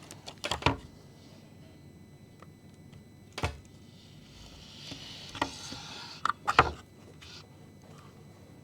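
Handling noise from the robot being picked up: a few sharp knocks and clacks of hard parts, the loudest about two-thirds of the way through, with a short rustle just before it.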